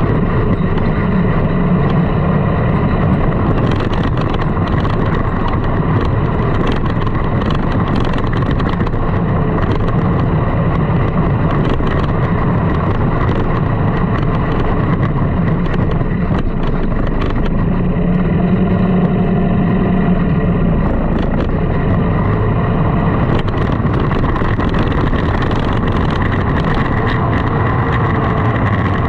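Sand rail's engine running steadily under load while driving over sand dunes, its note shifting up and down slightly as the throttle changes.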